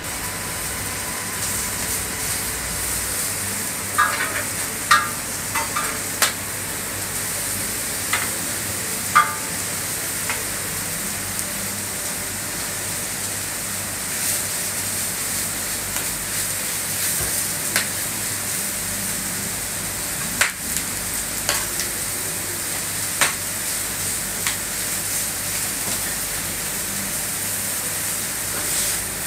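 Steaks frying on a gas flat-top griddle: a steady sizzling hiss, with scattered sharp clinks and scrapes of a metal spatula against the griddle plate.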